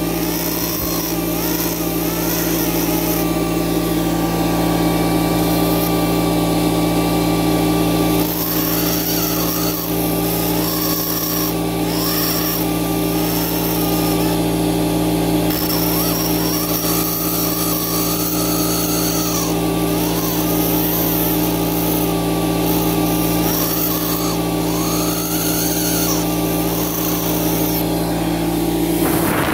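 Air scribe running with a steady buzz as its tip chips white chalky rock away from an ammonite fossil, the pitch wavering slightly as the tip bites into the stone.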